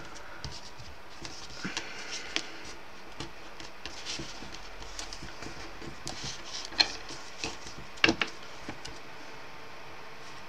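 Light rustling and scraping of thin card being folded along its scores and pressed flat by hand on a desk, with a few sharper clicks about two-thirds of the way through.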